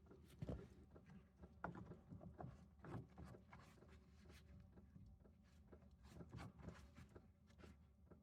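Near silence: faint room tone with scattered light clicks and knocks, a little stronger in the first three seconds.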